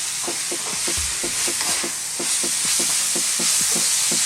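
Stir-fry of chicken, green peppers, bean sprouts and spring onions sizzling in a very hot wok, with the stirring utensil scraping and knocking against the wok about five times a second as it is stirred vigorously.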